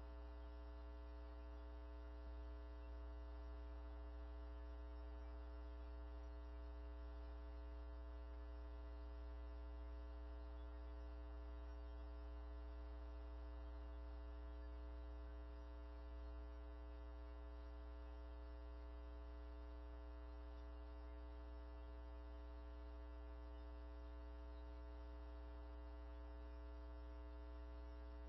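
Steady electrical mains hum made of several fixed tones, unchanging, with no other sound.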